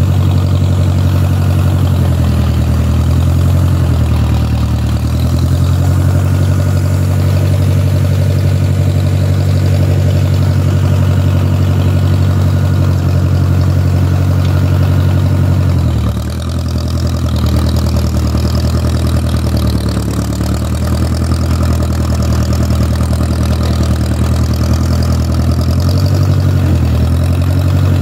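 1969 Case Construction King tractor's engine running steadily as it drives off to plow snow. Its speed dips briefly a few seconds in, about halfway through and again near the end.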